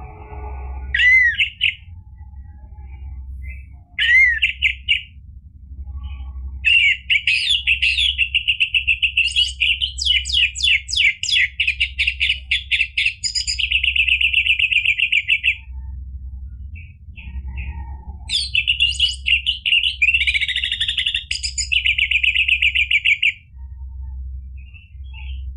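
Orange-headed thrush (anis merah) singing: two short rising whistled phrases, then long stretches of rapid, high, trilled repeated notes, over a steady low hum.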